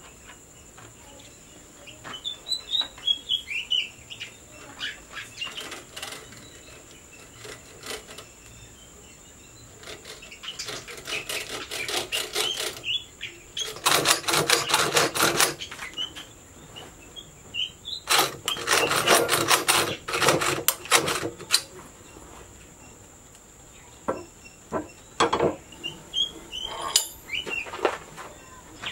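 Three spells of fast, rough, rhythmic scraping from hand tools working a knife blade, the loudest sound, with birds chirping and a steady high insect drone behind.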